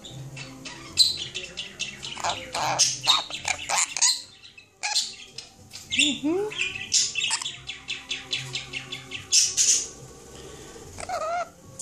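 Sun conure chattering: a rapid run of short chirps and squawks, with a few sliding whistled notes partway through and again near the end.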